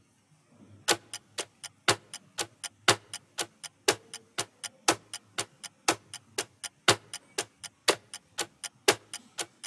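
Clock-tick sound effect of a quiz countdown timer, starting about a second in: quick, even ticks about four a second, with a stronger tick once a second.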